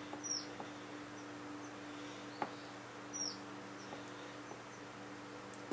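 Faint clicks and taps of a small plastic crimp connector and wire being handled, over a steady electrical hum. A faint high chirp that falls in pitch comes twice, about three seconds apart.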